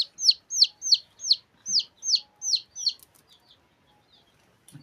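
A bird calling in a rapid series of loud, high chirps, each a quick downward sweep, about three a second. They stop about three seconds in, followed by a few faint chirps and a soft knock near the end.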